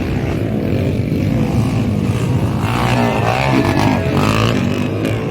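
Motocross dirt bike engines running, a loud steady drone.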